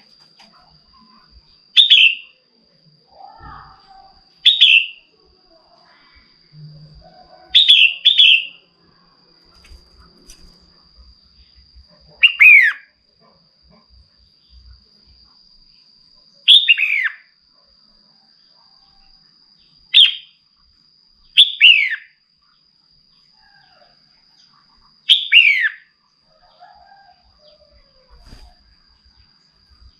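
Female red-whiskered bulbul calling: about nine short, loud chirps every few seconds, several sliding down in pitch and one given as a quick pair. These are the calls a hen bulbul uses to stir up males. A faint, steady high whine runs underneath.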